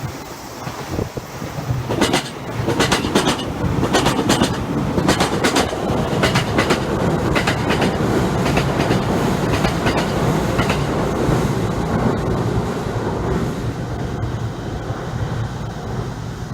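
Electric commuter train passing at low speed. Its wheels clack over the rail joints in repeating pairs, and the rumble fades as it goes by. It is crawling under a strong-wind speed restriction.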